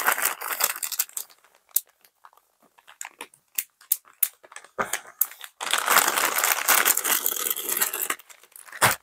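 Clear plastic zip-lock bag crinkling as hands handle it and pull it open, with a few scattered light clicks in a quieter middle stretch and a longer run of crinkling from about six seconds in.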